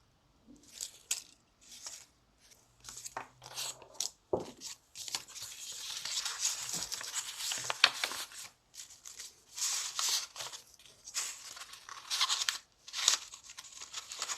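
Cardstock and paper rustling and crinkling in irregular bursts as a handmade exploding box card is folded shut, its flaps pressed down over paper daisies.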